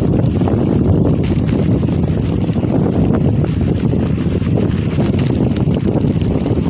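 Bicycle riding over a dirt trail: a steady low rumble of wind on the microphone, with the crunch and light rattle of tyres on loose ground.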